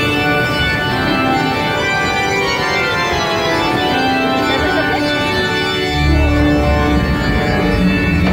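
Sustained organ-like chords from the ride's cave soundtrack. A deep low rumble joins in about six seconds in.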